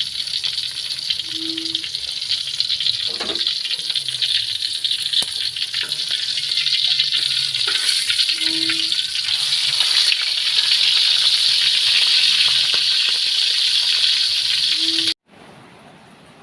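Dense, shrill insect chorus, like cicadas, swelling slightly. A short low hoot sounds three times, about seven seconds apart. The chorus cuts off suddenly near the end.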